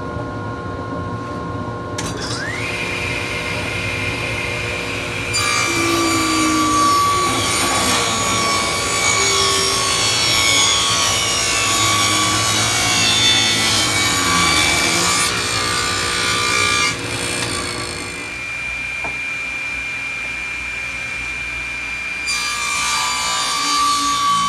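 Grizzly G0771Z table saw: its motor winds up to speed about two seconds in, then the blade cuts through wood for about ten seconds. It runs free for a few seconds before a second cut starts near the end.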